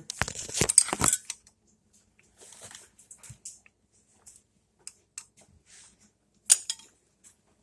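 Small loose metal engine parts clinking and rattling against each other as they are handled, a quick run of clinks at first, then scattered lighter taps, and one sharper clink about six and a half seconds in.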